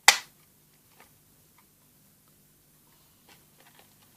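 A sharp plastic click right at the start, then a few faint ticks and taps: the plastic cover of a fire alarm break-glass call point being handled and snapped into place.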